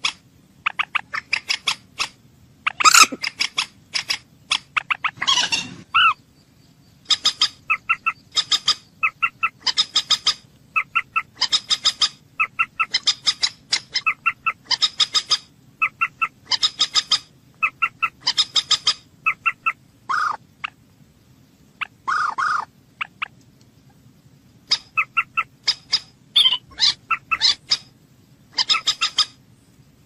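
Common moorhen calling: short, sharp notes repeated in quick runs of several, the runs following one another with brief gaps, and two longer, harsher single calls about two-thirds of the way through.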